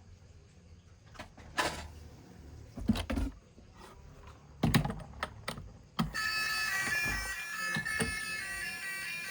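Scattered clicks and knocks of small plastic toys and packaging being handled. About six seconds in, a bright electronic tune of stepped, held notes starts and keeps playing.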